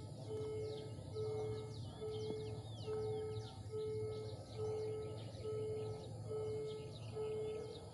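Small birds chirping with quick falling notes, over a low steady beep that repeats evenly a little more than once a second, and a faint background hum.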